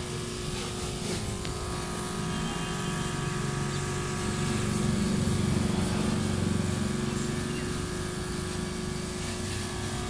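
Small electric diaphragm pump of a portable washer running steadily with a constant hum, a little louder around the middle.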